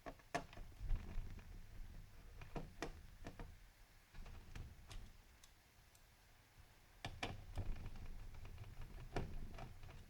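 Faint, irregular clicks and taps of a small screwdriver working screws out of a laptop's plastic chassis, with some handling noise of the laptop.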